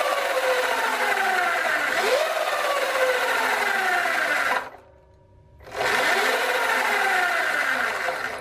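Sur Ron Light Bee electric dirt bike's motor and chain drive spinning with the rear wheel free, its whine rising briefly and then falling in pitch as it coasts down. About halfway through it drops out for about a second, then spins up again. Through it runs a repetitive clanking from the jackshaft, the sign of worn jackshaft bearings.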